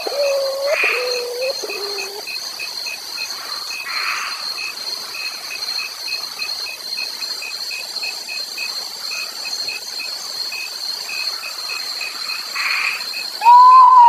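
Potoo song: a series of whistled notes, each lower than the one before, fades out over the first two seconds and starts again loudly near the end. In between, a steady night chorus hums, with a regular pulsing call about three times a second.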